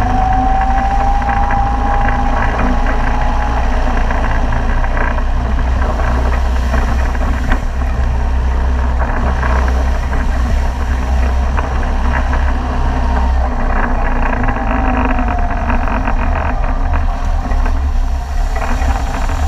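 Open off-road jeep's engine running steadily under way, heard close up from the front bull bar, with water spraying from the wheels as it drives through shallow water.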